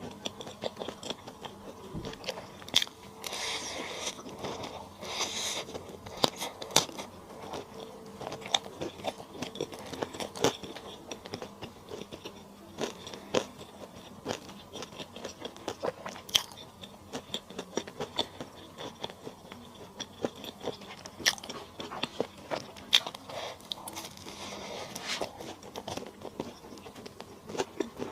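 Eating sounds: a person chewing and biting into lemon chicken stir-fry, with many sharp crunches and clicks throughout and two busier spells of crunching, about three seconds in and again near the end.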